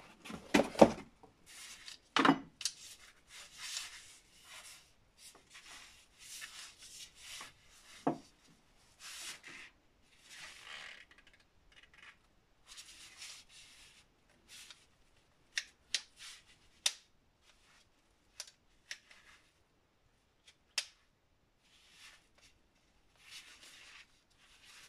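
Handling noise: a cardboard box is shifted and set down with a couple of knocks near the start, then gloved hands rub and scuff against an angle grinder's plastic housing and cable, with several sharp clicks in the middle and no motor running.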